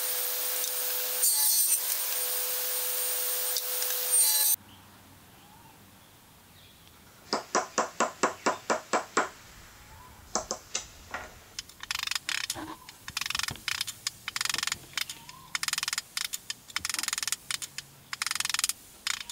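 Table saw running and ripping a strip of wood, stopping sharply about four and a half seconds in. After a pause, a wooden mallet strikes square stock about ten times in quick succession, roughly five blows a second, driving it through a steel dowel plate, then a few more blows. A run of short scraping noises follows.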